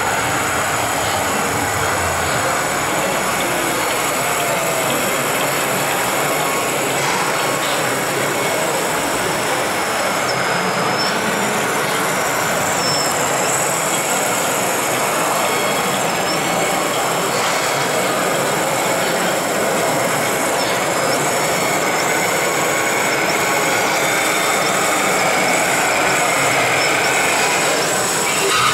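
Radio-controlled model vehicles running: a high electric-motor and gear whine that dips and recovers repeatedly with the throttle, over a steady hiss of mechanical noise.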